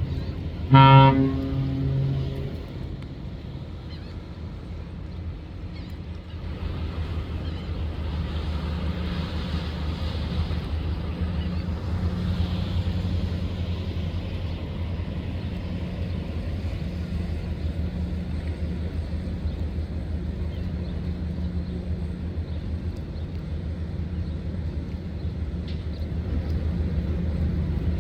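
Cargo ship's horn sounds a deep, loud blast about a second in, lasting under two seconds, then a steady low rumble continues.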